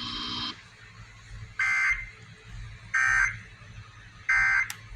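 An Emergency Alert System end-of-message signal from a weather radio broadcast: three short, identical buzzing SAME data bursts about a second apart, marking the end of the tornado warning. Before them, a steady hiss cuts off about half a second in, and there is a sharp click near the end.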